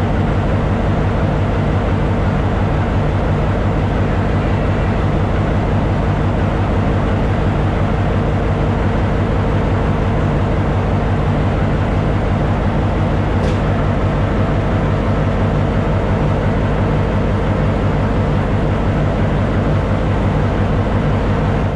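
Sri Lanka Railways Class M6 diesel locomotive engine idling steadily, recorded close beside its engine compartment: an even, low, pulsing engine beat with a constant hum.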